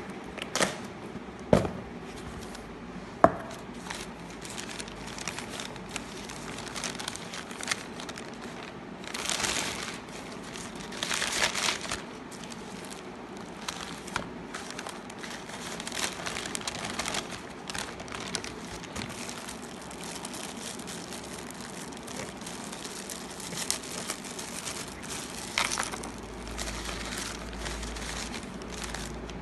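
Crumpled newspaper packing and plastic wrap rustling and crinkling as a cardboard box is unpacked by hand, with a few sharp knocks in the first few seconds and longer spells of crinkling about a third of the way through.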